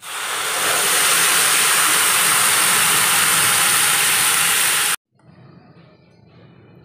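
Water hitting a hot pan of Gobindobhog rice fried in oil and ghee, hissing loudly as it flashes to steam. The hiss builds in the first half second, holds steady, and cuts off suddenly after about five seconds.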